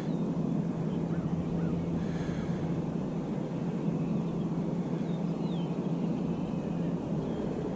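Steady low outdoor rumble with a constant hum underneath, like distant traffic, and a few faint high bird chirps scattered through it.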